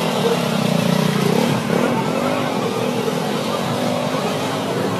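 An engine running and revving, its pitch rising and falling again and again.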